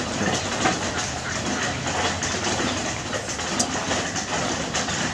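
Steady rushing background noise with fine crackling clicks throughout.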